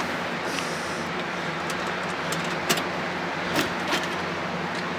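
A few sharp clicks and knocks over a steady hum: the side panel of a desktop PC case being unlatched and handled to open it up.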